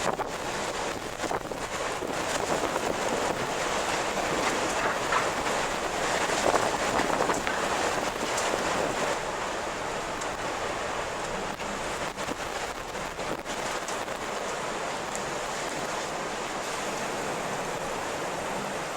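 Strong wind blowing with a steady rush that swells in a gust about six to eight seconds in, then eases.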